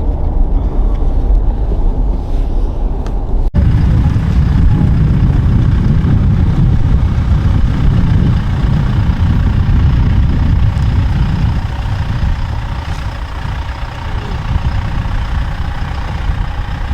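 Steady low rumble of a car on the move, with road and engine noise heard from inside the cabin; it breaks off abruptly about three and a half seconds in and picks up again slightly louder.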